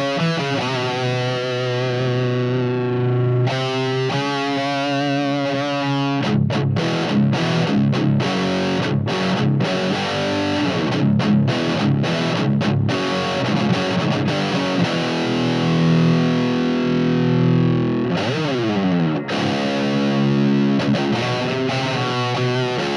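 Distorted electric guitar played through an amplifier and guitar speaker cabinet, playing a riff: ringing held chords, then a run of short, cut-off chords in the middle, and a sliding run of notes about three-quarters of the way through.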